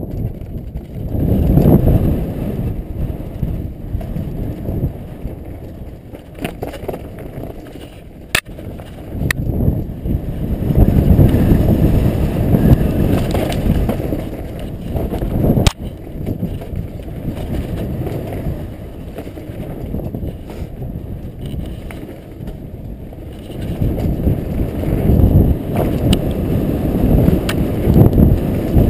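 Mountain bike rolling fast down a rough forest trail: a low rumble of knobby tyres and wind on the microphone that swells and fades with speed, with a few sharp knocks and rattles from the bike over bumps.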